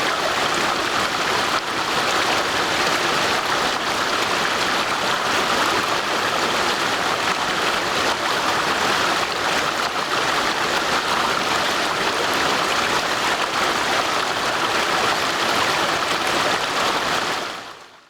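Steady rushing and burbling of a stream's flowing water, fading out just before the end.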